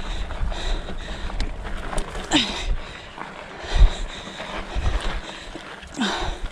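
Hardtail mountain bike ridden along single track: low wind rumble on the chest-mounted microphone, with a couple of low thumps from the ride near the middle. The rider breathes out audibly twice.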